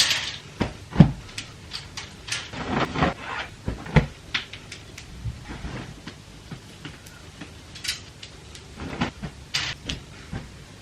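Clothes being handled and sorted: rustling, with a series of sharp knocks and clicks; the loudest knocks come about a second in and again about four seconds in.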